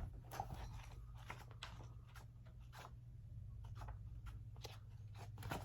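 Faint rustling and soft scattered taps from a book being handled, over a steady low hum.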